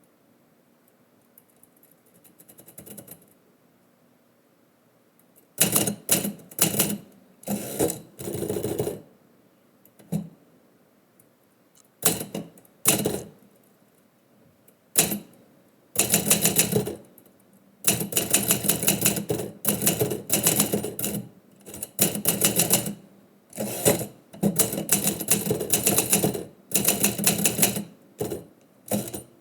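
Typewriter typing in bursts of rapid keystrokes with short pauses between them, starting about five seconds in after a quiet stretch.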